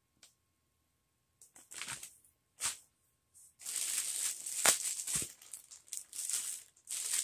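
Clear plastic poly bags crinkling as they are handled: a couple of short rustles, then a longer stretch of continuous crinkling from about three and a half seconds in, with two sharp clicks in it.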